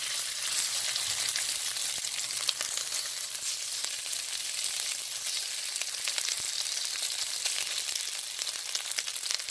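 Marinated strips of top round beef searing in hot peanut oil in a wok on high heat: a steady sizzling hiss with scattered crackles and pops.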